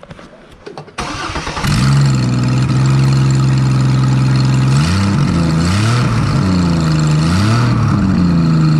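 Starter cranks the Chevy Trailblazer's 4.2-litre inline-six, which catches after about a second and runs loud, its exhaust blowing out through the open oxygen-sensor port on a manifold the owner suspects is cracked. It idles steadily, then its engine speed dips and rises twice.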